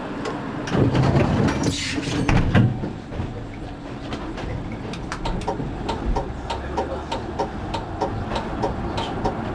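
Passenger doors of an EGT6 tram closing, loudest about one to three seconds in, then the tram running with a steady stream of quick regular ticks from about five seconds on.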